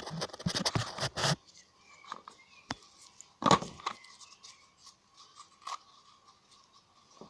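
Crinkling and scraping of gloved hands peeling the electrolyte-soaked paper separator off an alkaline AA battery's core. The noise is densest in the first second and a half, comes again around three and a half seconds in, and is followed by scattered small clicks over a faint steady tone.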